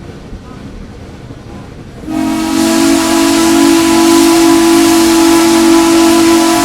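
Steam locomotive whistle blowing one long, steady blast with a hiss of steam, starting suddenly about two seconds in; before it, a low rumble of the moving train.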